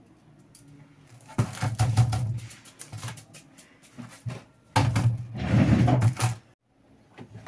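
Baking paper crinkling and rustling under hands pressing and shaping small pastries on a tray, in two spells of about a second and a half, beginning about a second and a half in and near five seconds in.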